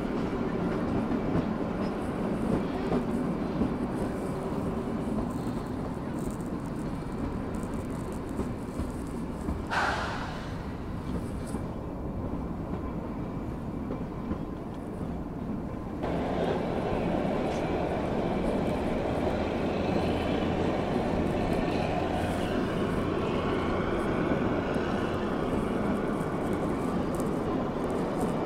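Running noise of a narrow-gauge Kalka–Shimla toy train, heard from inside a coach: a steady rumble and rattle of the wheels and coaches on the rails. There is a brief sharper sound about ten seconds in. About sixteen seconds in, the sound jumps louder and a low steady drone comes in.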